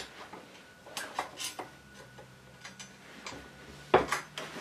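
Steel wire rack from an old cooker shelf being worked in a cast-iron bench vise: light metal clicks and clinks, then a louder cluster of clanks about four seconds in as the rack is moved against the vise.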